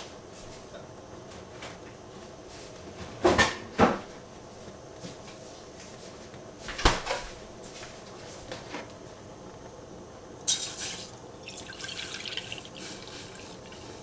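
Three sharp knocks, two close together and one a few seconds later, then in the last few seconds milk poured from a plastic jug splashing into a stainless steel saucepan.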